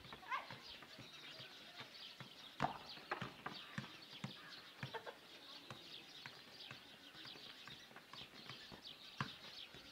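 Faint, irregular soft knocks of a football being kicked on a dirt ground, the loudest about two and a half seconds in, over faint outdoor hiss.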